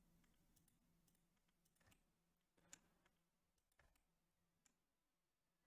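Near silence broken by a handful of faint computer mouse and keyboard clicks, the clearest a little under three seconds in.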